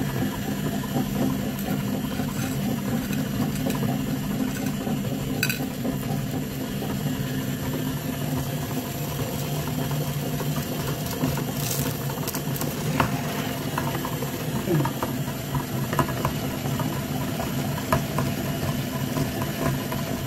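A small grinder running with a steady motor hum as its auger grinds cookie and candy pieces, with scattered clicks and crackles.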